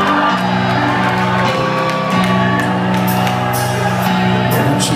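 Live rock band playing loudly: sustained low notes held under sharp, repeated high strikes.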